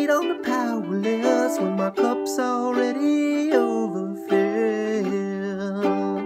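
Soprano ukulele strummed in steady chords, with a man's voice singing a long, sliding melody line over it.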